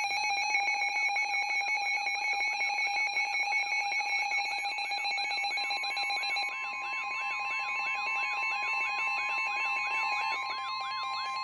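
Weather alert radios sounding a flash flood warning alarm: several steady beeping tones layered with a warbling tone that repeats about twice a second. About six seconds in, a further steady tone near 1 kHz joins them, typical of the NOAA Weather Radio 1050 Hz warning alarm tone.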